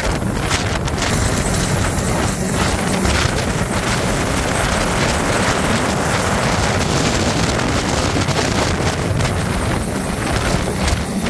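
Coastguard rescue helicopter hovering low overhead, its rotor wash buffeting the microphone in a loud, steady rush.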